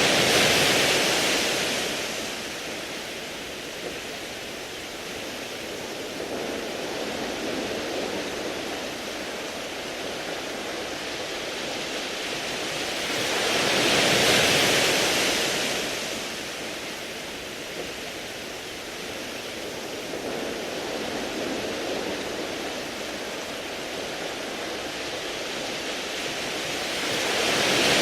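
Sea waves washing over a beach of smooth round pebbles. Swells of louder surf come about every 14 seconds, at the start, midway and again at the end, with a steady hiss of water between.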